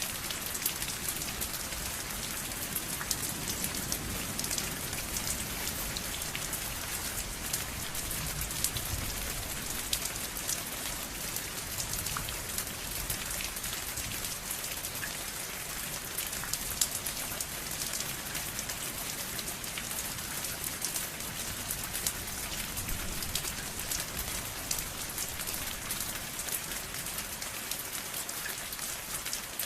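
Steady rain, with many individual drops ticking sharply against a surface over a constant hiss.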